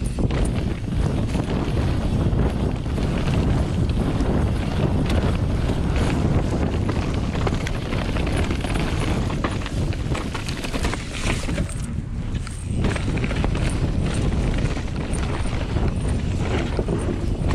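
Specialized Enduro Expert 29 mountain bike descending a dirt trail: tyres rolling over soil and leaf litter, with constant small rattles and knocks from the bike, under wind rushing on the microphone. The noise eases briefly about twelve seconds in.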